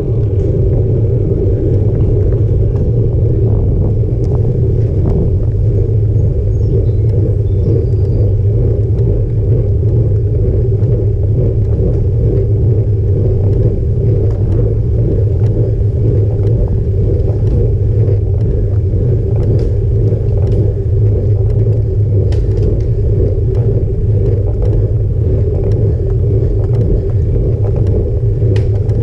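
Steady low rumble of a road bike's tyres and the road surface shaking a handlebar-mounted camera, mixed with wind on its microphone, with a few faint ticks.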